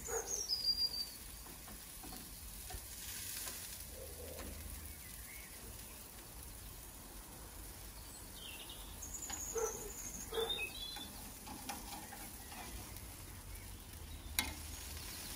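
Burgers and sausages sizzling on a gas barbecue grill, a steady hiss. A few bird chirps come near the start and again about ten seconds in, and there is one sharp click near the end.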